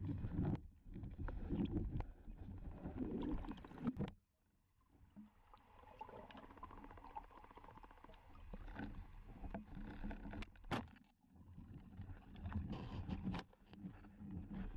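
Muffled underwater noise through a waterproof compact camera's built-in microphone: low rumbling water movement and scattered knocks as a diver swims. The noise breaks off briefly about four seconds in, and there is one sharp click about eleven seconds in.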